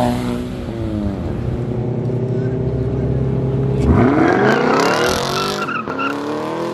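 A car's engine rising in pitch as it pulls away, then holding steady. About four seconds in, a Chevrolet Camaro revs hard and spins its rear tires, tire squeal and hiss lasting a couple of seconds as it leaves in a cloud of tire smoke.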